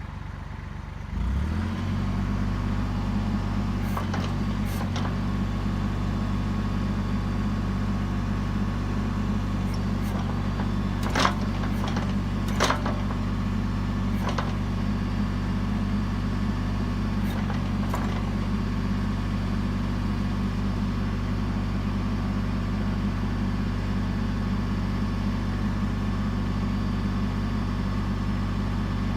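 Kubota L39 tractor's diesel engine running steadily; it picks up about a second in. A few knocks come through, with two sharper clanks near the middle.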